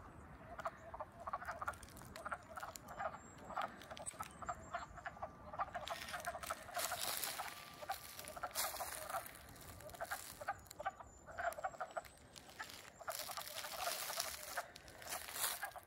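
A chorus of wood frogs calling in a pool: many short, duck-like clucking calls overlapping without a break. This is their early-spring breeding chorus, just after the frogs have come out of winter dormancy.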